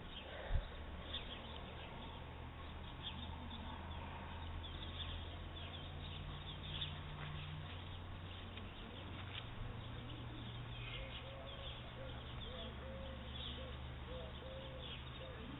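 Birds chirping over a steady low hum, with one sharp click about half a second in.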